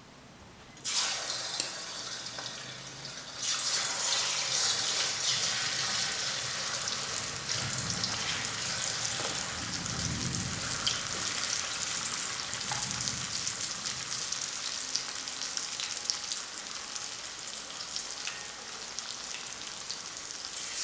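Marinated boneless chicken pieces going into hot coconut oil and deep-frying in a pan, a steady dense sizzle. The sizzling starts about a second in and grows louder a couple of seconds later as more pieces go in.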